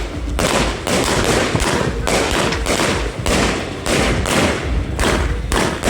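A 500-gram Wings of Fire firework cake firing a rapid volley of shots, about two loud bangs a second.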